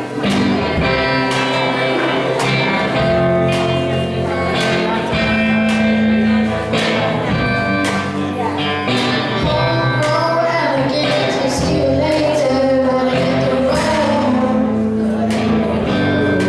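A school band playing a song: guitar, sustained chords and steady drum hits, with a voice singing over it, most clearly in the second half.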